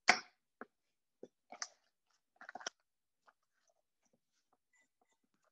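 Chef's knife slicing green onions on a wooden cutting board: about six crisp chops in the first three seconds, the first the loudest, then only faint taps.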